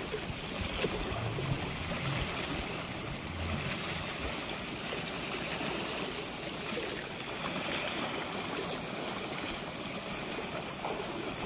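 Steady rush of a fast brown river washing against a sloped concrete weir bank, with small waves breaking along the waterline.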